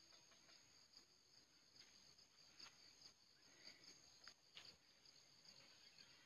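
Faint, steady high-pitched chirring of insects in the vegetation, with a few light crackles and rustles scattered through it.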